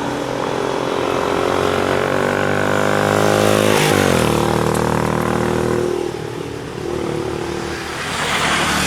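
Benelli Imperiale 400's single-cylinder engine and exhaust, the revs climbing steadily, then dropping sharply about four seconds in. It runs steadier at lower revs after that and picks up again near the end.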